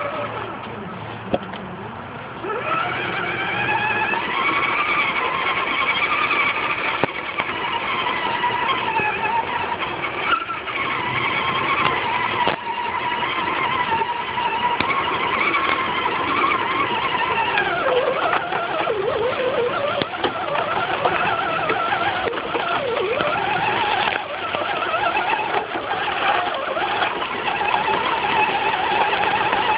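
Electric motor and gearbox of an Axial SCX10 radio-controlled scale crawler whining as it drives, heard from a camera riding on the truck. The whine rises about two seconds in, holds fairly steady, then wavers up and down in pitch with the throttle through the second half.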